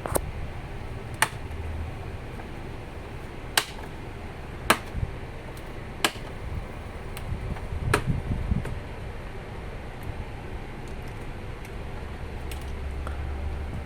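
Plastic snap-in latches of an ASUS laptop's case clicking loose one at a time as the case is pried open, about six sharp clicks a second or two apart.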